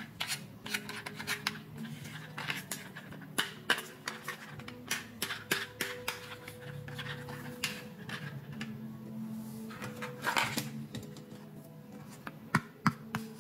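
Small hard-plastic toys, a doll's pram and a doll's bathtub, clicking, tapping and rattling irregularly as they are handled and turned over in the hands.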